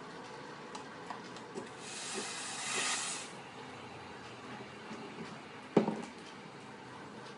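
Pascale 1875 espresso machine's steam wand releasing a hiss of steam for about a second and a half, followed a few seconds later by one sharp knock.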